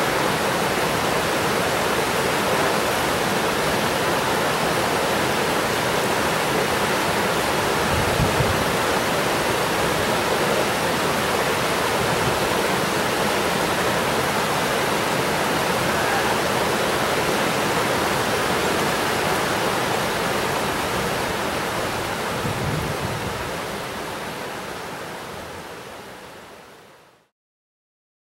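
Rocky river rapids rushing over and between boulders, a steady rush of water that fades out over the last few seconds.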